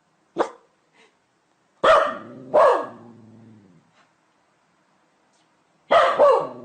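A dog barking: one short bark, then two pairs of loud barks a few seconds apart, each pair trailing off in a lower fading tail.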